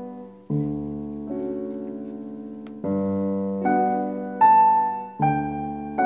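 Slow piano music: sustained chords, a new one struck about every two and a half seconds, with a few higher melody notes added on top.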